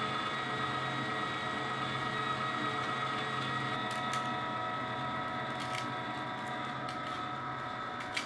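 LEM electric meat grinder running under load, its motor giving a steady hum as it grinds seasoned beef and pork. A few faint clicks sound over it.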